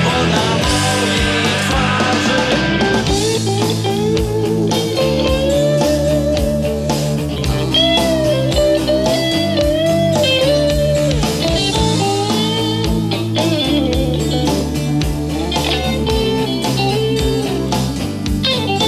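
Instrumental break of a rock song: a lead guitar plays a melody with bent, sliding notes over the band's guitars, bass and drums, with a steady beat.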